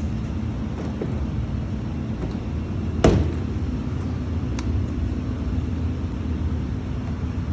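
Steady low background rumble, with one sharp knock about three seconds in and a few faint clicks.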